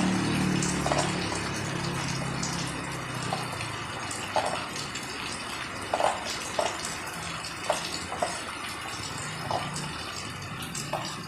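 Steady rain falling, with heavy water drops splashing down one by one at irregular intervals, about ten in all. A low hum fades out over the first few seconds.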